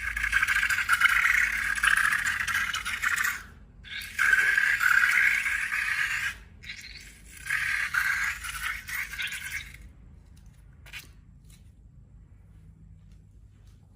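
Slime being worked, making three long crackling, scraping stretches with short breaks between them, then a much quieter spell with a faint click or two near the end.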